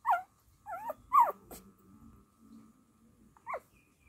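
Newborn dachshund puppy squeaking: a handful of short, high squeaks, each dropping in pitch, the loudest about a second in.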